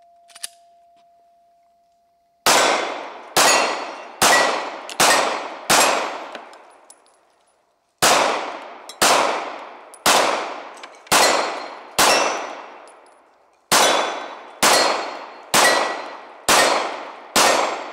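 Glock 26 9mm pistol fired in three strings of five shots, about one shot a second with a short pause between strings, with steel targets ringing as they are hit. A faint ring from an earlier hit on a steel target dies away in the first two seconds before the firing starts.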